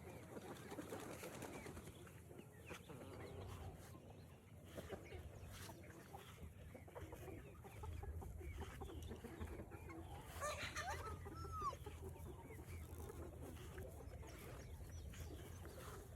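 Chickens clucking, with one louder call about ten and a half seconds in and a low rumble underneath from about eight seconds in.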